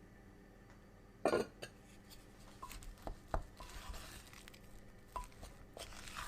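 Kitchen handling sounds: one sharp clack of dishware or utensils a little over a second in, then scattered light clicks and a brief rustle.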